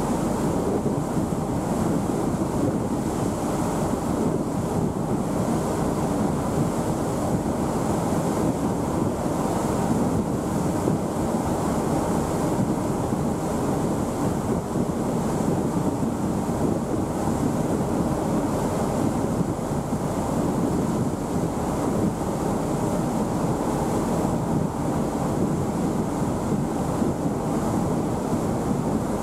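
Steady rushing of wind on the microphone over the wash of sea water, with a low rumble underneath and no breaks or distinct events.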